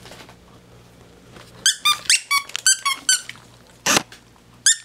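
Squeaky dog toy squeaking in quick runs of short, high squeaks from about a second and a half in, as a dachshund bites it; one short rustle about four seconds in.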